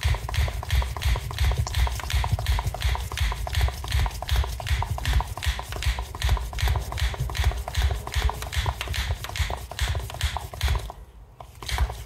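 Hand air pump with a pressure gauge being worked in quick, regular strokes, pumping air into a combi boiler's expansion vessel to repressurise it. The strokes stop about eleven seconds in.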